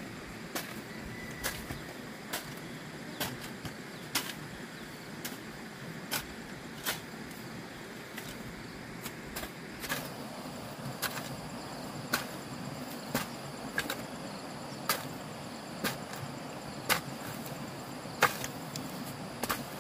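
Sharp knocks about once a second over a steady background noise, one louder knock near the end.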